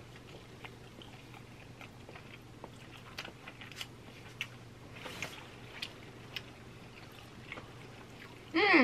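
Close-miked chewing of sushi, with scattered small wet mouth clicks and ticks over a faint steady hum. Near the end comes one short, louder voiced 'mm' that falls in pitch.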